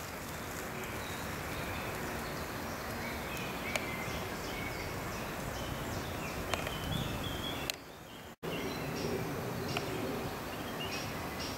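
Woodland ambience: a steady background hiss with short bird chirps now and then. The sound drops out for about half a second around eight seconds in.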